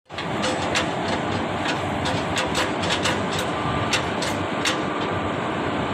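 Standing electric locomotive running with a steady mechanical noise, its blowers and compressor going. Over it come a string of short, sharp metallic clicks and clinks during the first five seconds, as the coupling gear at the front is handled.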